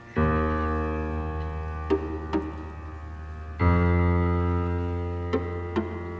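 Instrumental music: a deep sustained keyboard chord struck just after the start and another about three and a half seconds in, each fading slowly, with a few short clicks in between.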